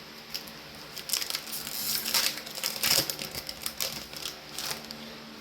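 Trading cards and booster-pack wrapping being handled: a run of crackly rustles and sharp clicks, busiest around the middle and dying down near the end.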